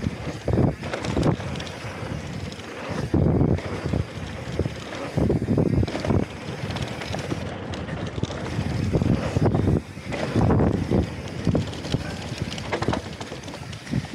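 Mountain bike rolling fast down a dirt trail: wind buffeting the microphone in uneven gusts over the knobbly tyres running on loose dirt and gravel.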